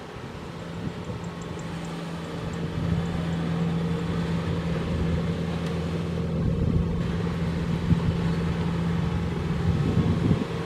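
Kubota DC-70 Plus rice combine harvester running with a steady diesel hum, growing louder a few seconds in.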